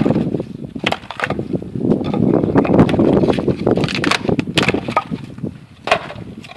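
Tiles being knocked and worked out of their moulds: a rapid, irregular run of knocks, cracks and scrapes, densest and loudest in the middle.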